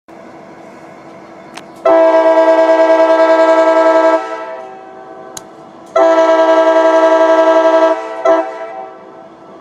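Third-generation Nathan Airchime K5LA five-chime locomotive horn on a CSX SD50-3 sounding two long blasts and then a short one, each a loud steady chord.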